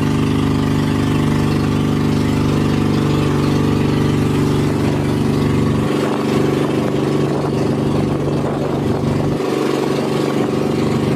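Engine of a motorized outrigger boat running steadily under way, a loud, even drone with water and wind noise over it; its deepest rumble thins out about six seconds in and again near the end.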